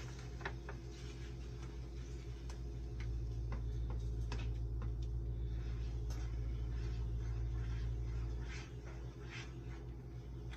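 A spoon stirring oatmeal in a saucepan of boiling water, with scattered scrapes and light knocks against the pot over a low steady rumble that swells a little in the middle.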